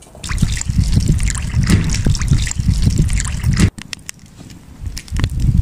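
Hands swishing and sloshing rice in water in a plastic basin as it is washed, stopping abruptly about two thirds in. Faint crackling from a wood fire follows.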